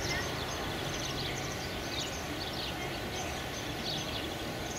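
Small birds chirping over and over, short falling high notes, over steady background noise.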